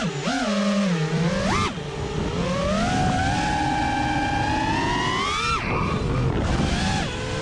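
Source One FPV quadcopter on a six-cell (6S) battery, its motors and propellers whining and changing pitch with the throttle. The pitch dips and rises in the first couple of seconds, climbs steadily for about three seconds, then falls away sharply about five and a half seconds in before picking up again near the end.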